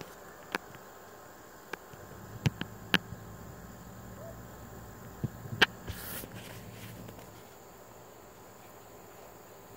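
Insects calling steadily in a faint high-pitched drone, with a few sharp clicks and taps scattered through, the loudest about three and five and a half seconds in, and a brief rustle just after.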